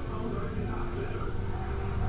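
Television sound in the room: faint voices and music over a low hum.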